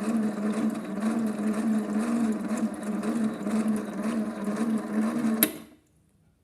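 Small electric motor of a vintage Theo Klein Miele toy washing machine running with water in the drum, its hum wavering in a regular rhythm. It stops with a sharp click about five and a half seconds in.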